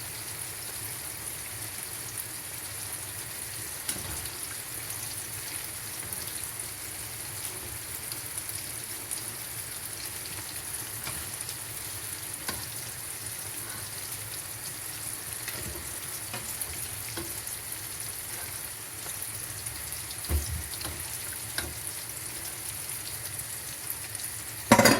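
Plantain slices frying in hot oil: a steady sizzle, with scattered light clicks of a utensil against the pan and one louder knock near the end.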